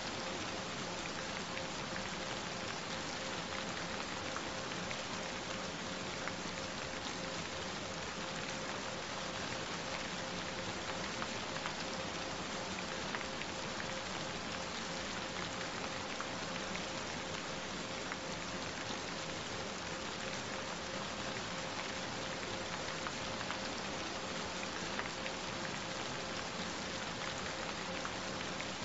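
Steady rain falling: an even hiss dotted with small drop ticks. Underneath, a single steady tone is held throughout, an added frequency tone.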